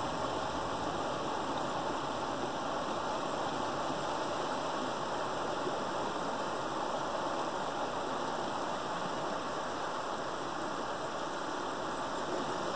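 Creek water rushing steadily through a gap pulled open in a beaver dam.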